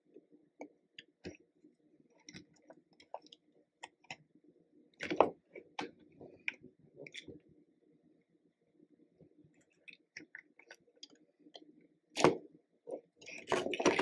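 Small plastic toy excavator and dump truck being handled and worked on a tabletop: scattered light plastic clicks and taps, with louder knocks about five seconds in, about twelve seconds in and a cluster of them near the end.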